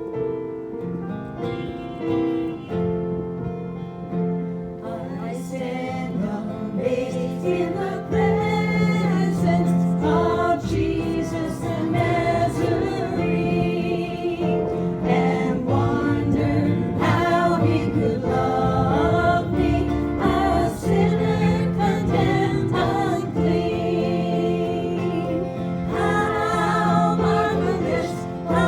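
Piano playing a hymn introduction, then several voices singing the hymn with the piano from about five seconds in.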